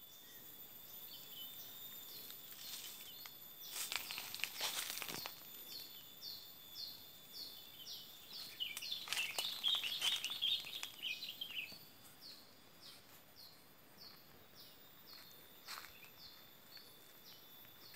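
Birds and insects in a rural plantation: a short falling chirp repeats about twice a second over steady high insect tones. About halfway through comes a louder burst of bird chatter. Brief rustling footsteps are heard about four seconds in.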